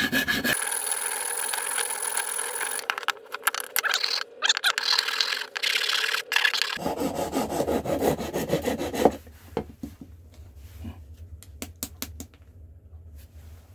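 A hand file scraping back and forth in a slot in a wooden frame, in quick repeated strokes, shaping a channel in the wood. The filing stops about nine seconds in, leaving a few light clicks and handling sounds.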